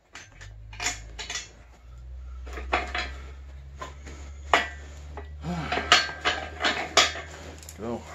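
Irregular metal clinks and clanks of hand tools and parts against a bare small-block Chevy engine block and crankshaft, in uneven clusters that are busiest in the second half, over a low steady hum.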